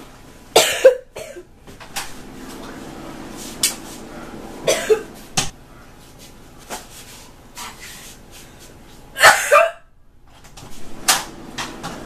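A person coughing: sharp coughs about half a second in, near five seconds and near nine seconds, the one near nine seconds the longest and loudest, and a shorter cough near the end.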